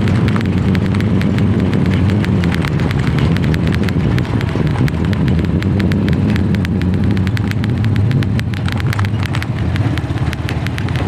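Steady low rumble with dense, irregular crackling and clicking: wind and road noise on a camera carried along a paved road during a ride.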